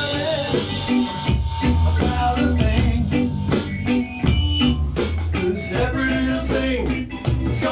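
Small live band playing a reggae tune, with bass guitar and drum kit keeping a steady beat under guitar and keyboard.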